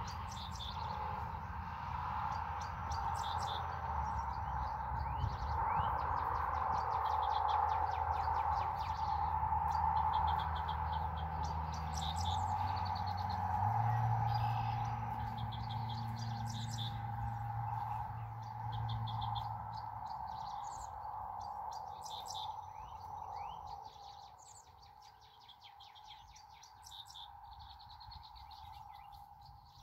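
Wild birds chirping in short repeated phrases over a steady background hum, with a low drone that fades about two-thirds of the way through.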